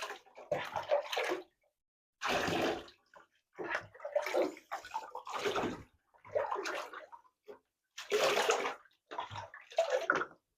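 Bath water splashing and sloshing in a tub as a Labrador puppy is washed, in a string of short bursts about a second apart.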